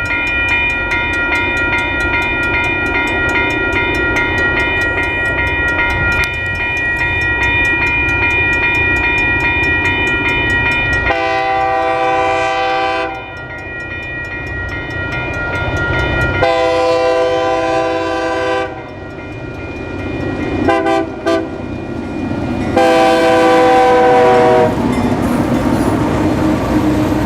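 Great Lakes Central Railroad diesel locomotive sounding its multi-chime air horn in the grade-crossing pattern: two long blasts, a brief short one and a final long blast, over the steady rumble of the passing train. A bell rings rapidly through the first half, fading out around the second horn blast.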